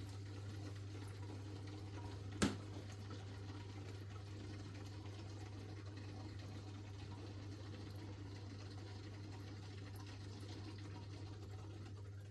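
Newly installed aquarium filter running: a steady low hum from its pump with faint moving water, and a single sharp click about two and a half seconds in.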